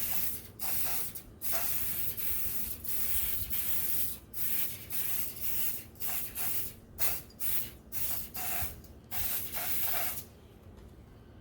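Aerosol sprayer misting denatured alcohol in a string of short hissing spurts, a few held for about a second, stopping about ten seconds in. The alcohol is fumed onto cloudy water marks in a shellac finish to draw the moisture out.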